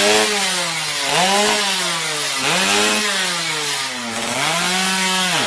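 Motorcycle engine being revved in repeated blips, about once a second, its pitch climbing and dropping each time.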